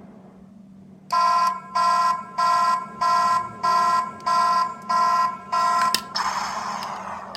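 Sound-effect capsule toy playing a recorded electronic alarm: eight even beeps at about one and a half a second, then a click and a hiss that fades away.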